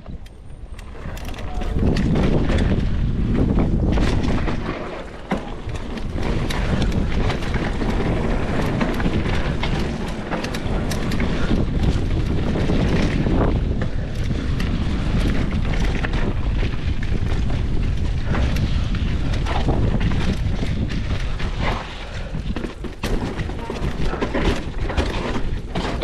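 Mountain bike ridden fast down a rough dirt trail: heavy wind buffeting on a body-mounted camera microphone, with frequent knocks and rattles from the bike over rough ground.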